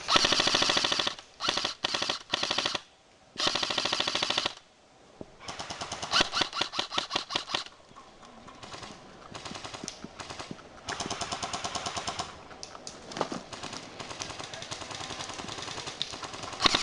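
Airsoft guns firing full-auto bursts, one after another with short pauses: several loud bursts in the first few seconds, then a run of quieter, longer bursts, and a loud burst again at the very end.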